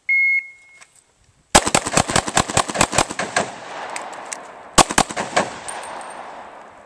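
A shot timer's start beep, then a Glock pistol firing the ten rounds of a Triple Nickel drill: a fast string of about eight shots, a short pause for the magazine reload, then a final couple of shots, each trailed by echo. The last shot lands just under five seconds after the beep.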